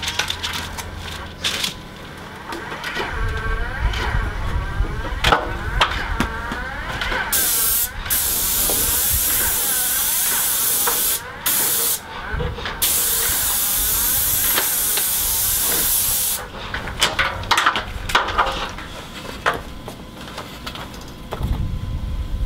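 Paint spray gun on an extension pole spraying top coat onto metal rain gutters. The steady hiss comes with each trigger pull: one of about four seconds, a brief one, then one of about three and a half seconds.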